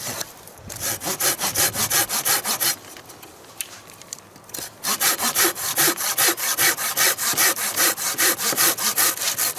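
A Samurai MP 210 MH hand pruning saw is cutting through a thin, dead fallen tree with quick back-and-forth strokes. There is a run of strokes, a pause of about two seconds, then steady, faster sawing.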